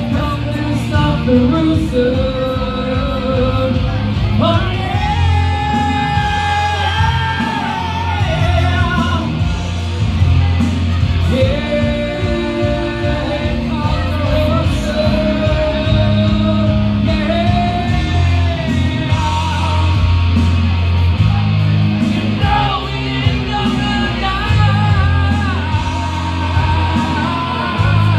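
A man singing karaoke into a microphone over a rock backing track played through PA speakers, with long held notes.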